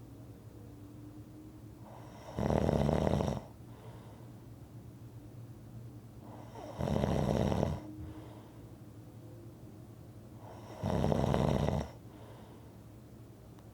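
A person snoring in a steady rhythm: three loud snores, each about a second long, coming roughly every four seconds.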